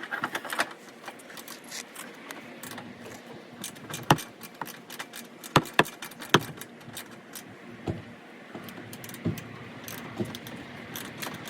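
Metal hand tools clinking and knocking against car suspension parts, a scatter of short clicks with a few sharp clanks near the middle.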